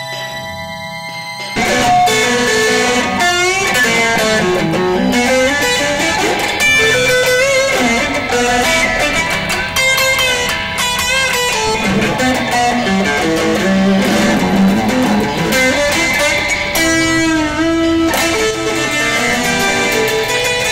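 Instrumental music led by electric guitar. A quieter passage of held tones gives way about a second and a half in to a louder section with bending, wavering guitar lines.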